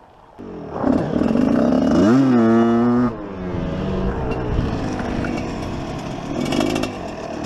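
Enduro dirt bike engine heard close up from the rider's helmet. It picks up about half a second in and revs rising around two seconds in. It holds high revs briefly, drops back about three seconds in and runs at part throttle, then rises again near the end.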